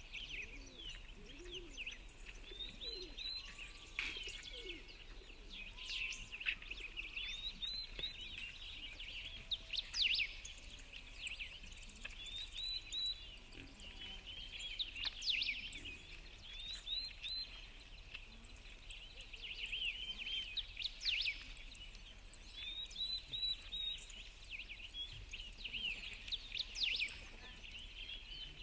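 Songbirds singing: a continuous chorus of short, high chirps and trills from several birds, overlapping and recurring every second or two.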